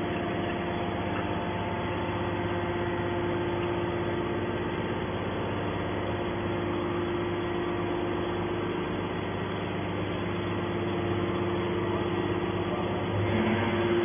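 Hydraulic metal baler's power unit running with a steady hum and whine while the ejector ram pushes a pressed bale of scrap iron shavings out of the chamber. Near the end its note shifts and it grows a little louder.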